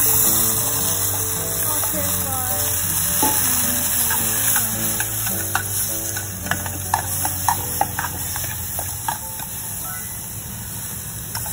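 Background music with a slow melody over a steady hiss, with light clicks of chopsticks against an aluminium Mestin mess tin as cucumber strips are dropped in and moved about, most of them in the middle of the stretch.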